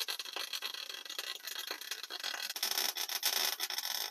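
Electric arc welding: a steady, dense crackle as a weld bead is run.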